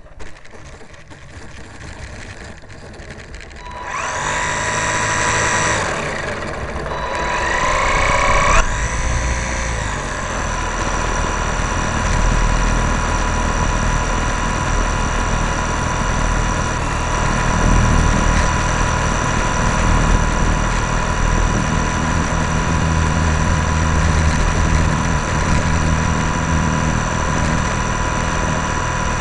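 Small RC airplane's motor heard close up from a camera on the airframe. It runs softly at first and is throttled up about four seconds in with a rising whine, eases briefly, rises again, then holds a steady high-pitched drone.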